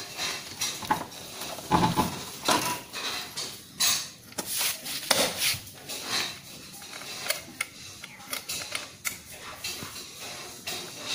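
Irregular clicks, taps and light clattering of plastic and metal from hands handling a TVS XL moped's headlight housing and handlebar controls, with a cluster of louder knocks about two seconds in.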